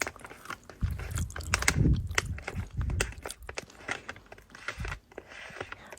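Close-miked ASMR trigger sounds: crisp clicks and crunches in quick irregular succession, with a few soft low thumps.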